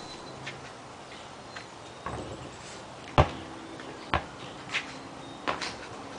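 A basketball bouncing on an asphalt court: a handful of sharp smacks, roughly a second apart, in the second half.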